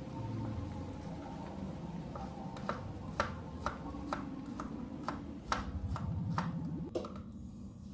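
Knife chopping on a cutting board, about two even strokes a second, stopping near the end.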